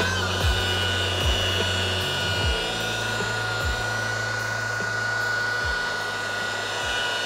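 Rotary polisher with a buffing pad running steadily against a boat's gel coat, a constant high motor whine with a low hum beneath. The load on the pad shifts about two seconds in.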